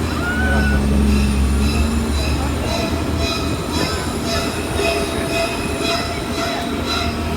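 Studio tour tram running, with a steady low rumble and held high squealing tones over it.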